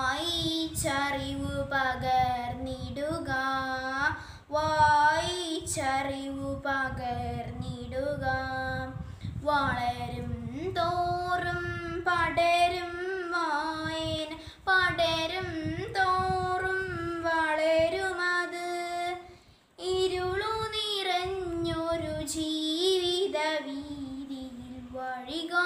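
A young girl singing solo without accompaniment, holding long wavering notes, with one short break about two-thirds of the way through.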